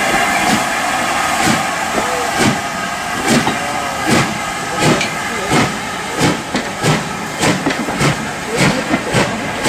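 Stanier Black 5 steam locomotive pulling away with its train of coaches, steam hissing at first. A regular knocking beat then sets in and quickens as the train gathers speed past the microphone.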